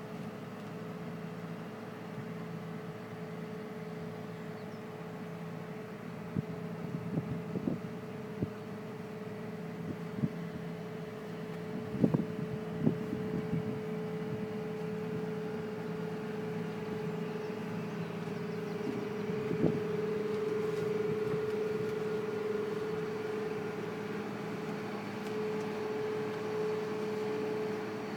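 Engine of a field picking machine running steadily with a constant hum, while sharp knocks and clicks come now and then, mostly in the middle and loudest about halfway through.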